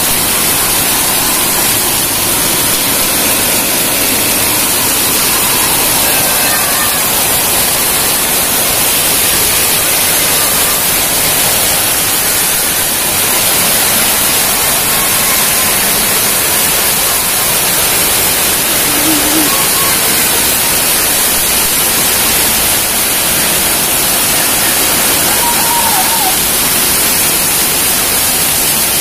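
Heavy rain pouring onto a concrete yard and puddled ground, a steady dense hiss of falling and splashing water.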